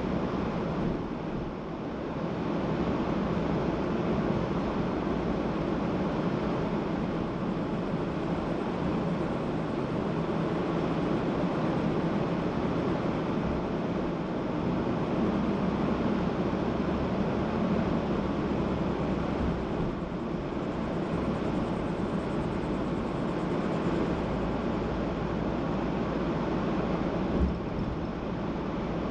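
A car driving along, with a steady rumble of road and engine noise. A brief low thump comes near the end.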